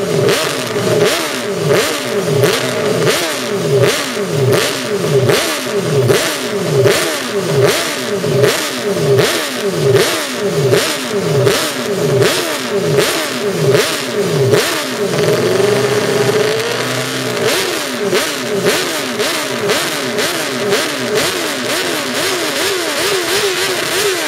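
Honda RC181 500 cc four-cylinder racing engine running on a stand through open megaphone exhausts, its throttle blipped over and over so the revs shoot up and fall away in quick succession. About two-thirds of the way through, the revs are held steady for a moment.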